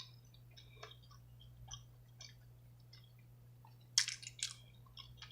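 Close-up chewing of a mouthful of seafood: soft wet mouth clicks and smacks, with a louder cluster of smacks about four seconds in.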